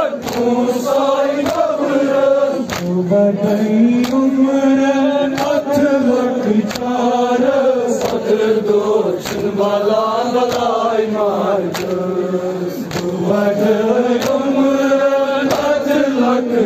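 Men's voices chanting a Kashmiri noha, a mourning elegy, in a slow drawn-out melody. Sharp slaps of matam, hands beating on chests, keep time at a steady beat a little faster than one a second.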